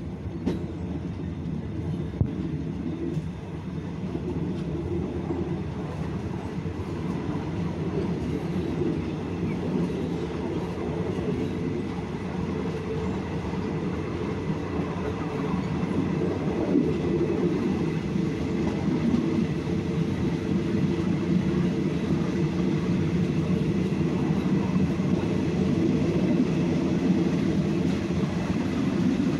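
Passenger train running on the line, heard on board from its rear car: a steady rumble of wheels on rail, with a few sharp clicks near the start, growing a little louder as it goes.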